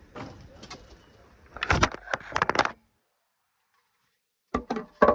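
A flurry of sharp wooden knocks and clatter about two seconds in, as of boards being handled, then a stretch of dead silence, then more knocks near the end.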